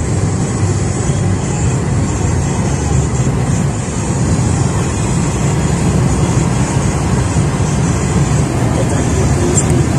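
Steady engine and road rumble of a car driving along, heard from inside the cabin.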